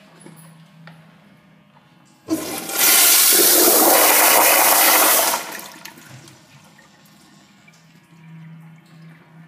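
Crane Plumbing Whirlton toilet on a flushometer valve flushing: a sharp start about two seconds in, then a loud rush of water for about three seconds that falls away quickly as the valve shuts.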